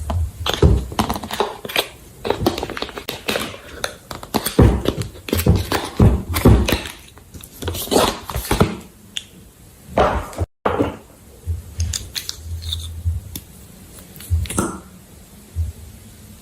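Slime being worked by hand: a dense run of short wet clicks, squelches and pops with dull thumps, thinning out after about nine seconds. The sound cuts out completely for a moment about ten seconds in.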